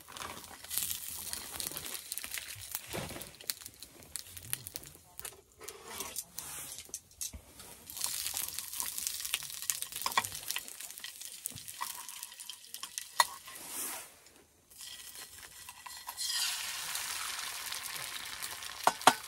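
Food sizzling in a pan, with utensils clicking and scraping against it. The sizzling grows fuller and louder toward the end.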